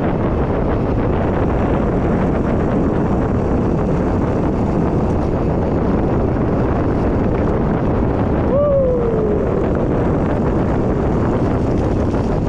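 Wind buffeting the microphone of a camera carried on a mountain bike descent: a loud, steady rushing noise. About two-thirds of the way in, a short tone falls in pitch over about a second.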